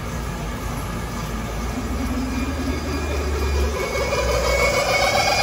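On-car wheel balancer spinning a car's front wheel and tyre up to high speed: a rising whine over a low hum, getting louder as the wheel speeds up. It is the high-speed test spin that showed up a factory defect in a new Yokohama BlueEarth tyre, an uneven tread that shook the steering wheel at 90–110 km/h.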